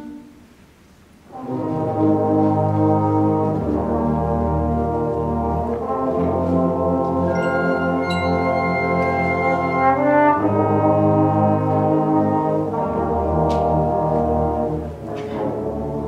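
High school concert band playing sustained, brass-heavy chords; after a brief hush the whole band comes in together about a second in, and the chords shift every few seconds. High ringing notes sound above the band around the middle.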